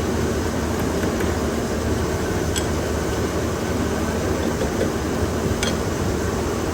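Steady factory machinery running, a dense low hum with a few faint clicks.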